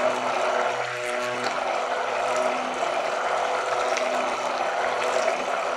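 Electric hand mixer running steadily on low, its beaters submerged in raw cold process soap batter of oils and lye solution, mixing it to trace. The motor tone shifts briefly about a second in.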